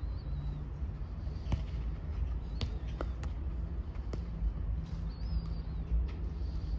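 Football kicked and touched during a passing and dribbling drill on artificial turf: a handful of sharp knocks from the ball between about one and a half and four seconds in, over a steady low outdoor rumble.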